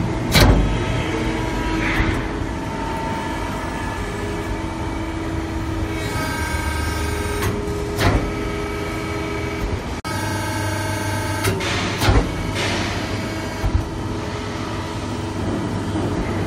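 Hydraulic press brake's electric pump motor and hydraulic pump running, a steady hum with a whine of several held tones, broken by a few short sharp knocks.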